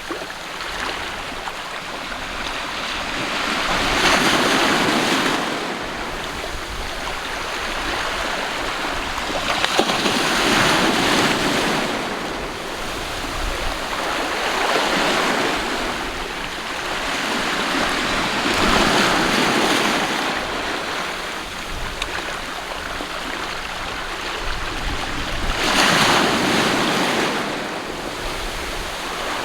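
Sea waves breaking and washing on the shore of the Sea of Japan: five surges a few seconds apart, each swelling and then falling back into a steady wash.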